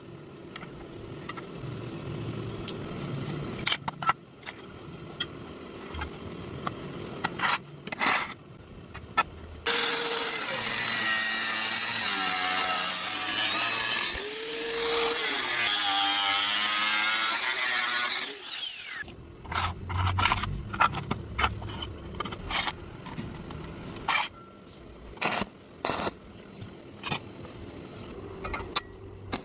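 Angle grinder cutting through steel angle iron for about eight seconds near the middle, its pitch wavering up and down with the load, then cut off and spinning down. Before and after come scattered clicks and sharp knocks of the metal being handled.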